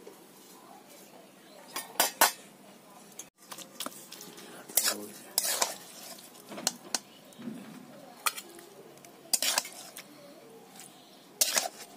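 Metal spoon and spatula clinking and scraping against stainless steel pots, bowls and a blackened frying pan as rice is scooped out and cooked pumpkin leaves are scraped into bowls. Short sharp clinks come every second or two, a quick pair about two seconds in.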